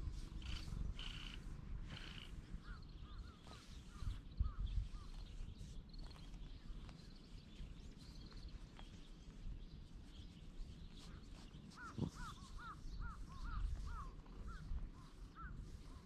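Birds calling outdoors in series of short hooked notes, with a quick run of them about twelve seconds in, over a low rumble of wind and handling on the microphone.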